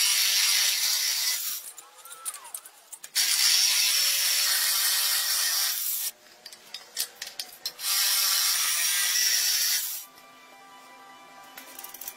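Reciprocating saw cutting through the wooden spokes of a cart wheel, trimming them to length: three runs of two to three seconds with short pauses between. The saw stops about ten seconds in.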